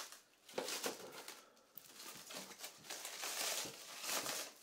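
Cellophane plastic wrap crinkling as hands press on it and pull at it, an uneven rustle that is busiest in the second half.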